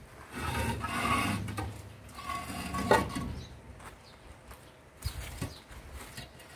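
Concrete hollow blocks scraping against one another as they are slid off a stacked truck load: two long gritty scrapes, the second ending in a knock, then a few light knocks of block on block.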